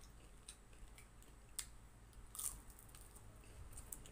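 Faint close-up chewing of crispy fried lumpia, with a handful of soft crunches and mouth clicks spread through it.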